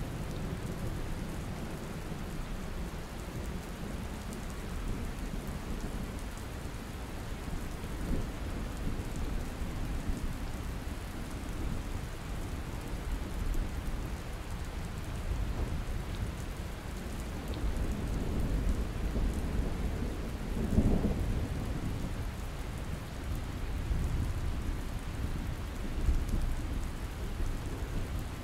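Heavy rain falling steadily, with low rolling thunder rumbling underneath. The rumble swells louder about two-thirds of the way through and again near the end.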